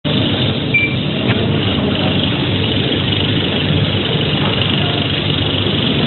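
Industrial microwave starch drying machine running, a steady mechanical hum from its motors. A brief high tone sounds just under a second in.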